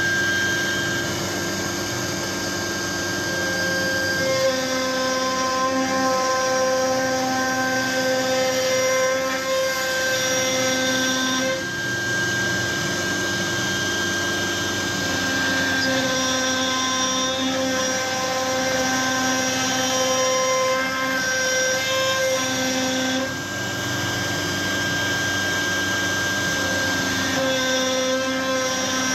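CNC router spindle running a 3/8-inch compression bit through 3/4-inch MDF in one pass at 600 inches per minute: a steady high machine whine with cutting noise, its tones dropping out and coming back every few seconds.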